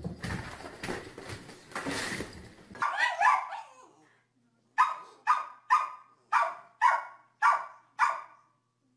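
Rustling and scuffling for about three seconds, then a small dog barks: seven sharp barks at a steady pace of about two a second.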